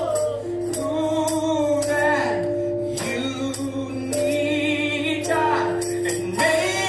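Gospel song performed live, with sustained sung notes sliding in pitch over a band, and a tambourine or cymbal keeping a steady beat.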